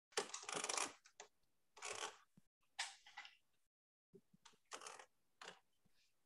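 Faint rustling and scraping noises in a handful of short bursts, the longest near the start, picked up by a video-call microphone.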